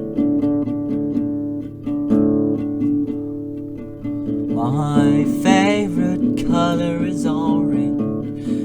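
Song with steadily strummed acoustic guitar chords. A wavering melody line joins over the guitar about halfway through.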